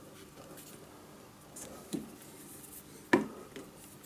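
Steel sharpening fixture being shifted by hand on a magnetic table: mostly quiet handling, with a soft knock about two seconds in and a sharp knock of metal on metal about three seconds in.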